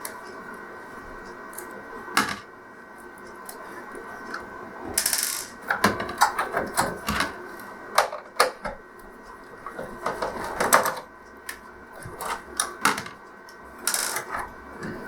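Small metal screws being undone and a TV's circuit board and metal chassis parts handled: irregular sharp clicks and clatters, thickest from about five seconds in.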